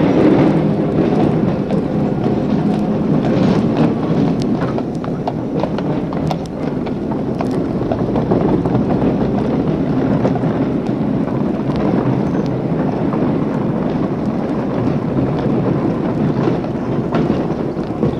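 Street traffic ambience: a horse-drawn dray's hooves clip-clopping on the road over a steady rumble of traffic, with scattered sharp knocks.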